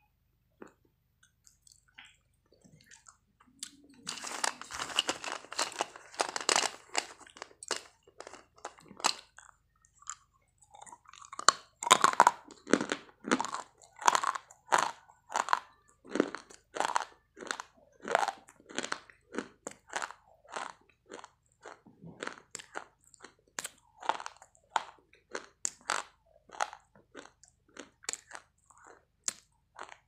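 Close-up crunching and chewing of hard white chalk-like sticks: a dense run of crunching a few seconds in, then sharp single crunches about twice a second.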